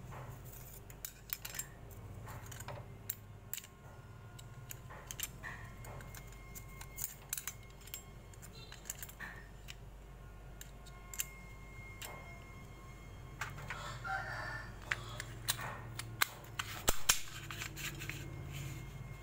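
Motorcycle clutch steel and friction plates clicking and clinking against each other and the metal clutch hub as they are stacked by hand, in scattered light clicks with a louder clatter about three-quarters of the way through. A steady low hum runs underneath.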